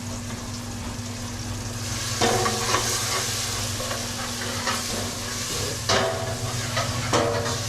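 Garlic, onions, potatoes and tomatoes sizzling in oil in a pan while being stirred. A utensil scrapes against the pan in short strokes about two seconds in, again around five to six seconds, and near the end.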